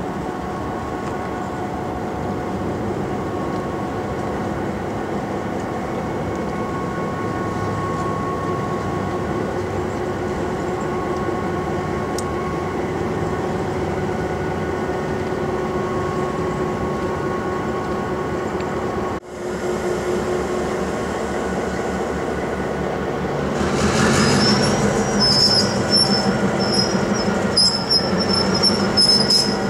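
NSW 42 class diesel-electric locomotive, with its EMD 16-cylinder two-stroke engine, idling steadily as it is turned slowly on a turntable. About three-quarters of the way through, the sound grows louder and high metallic squealing from the turning turntable joins in.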